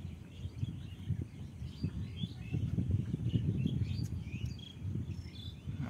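Birds chirping in short, scattered calls over a low, uneven rumble.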